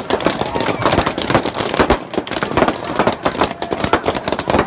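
A dense, rapid string of sharp cracks and pops, many a second, that goes on without a break.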